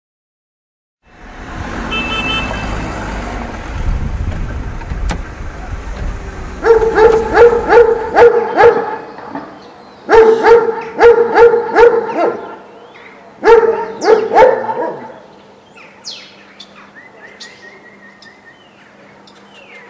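A dog barking in three quick bouts of yaps, about four a second. Before the barking there is a low rumble. Faint bird chirps come near the end.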